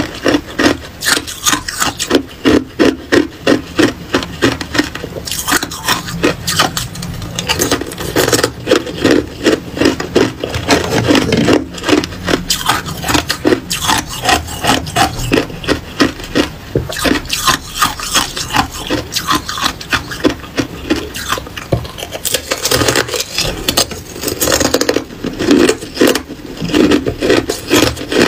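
Hard ice being bitten and chewed close to the microphone: quick, loud crunching, several crunches a second, with short lulls between mouthfuls.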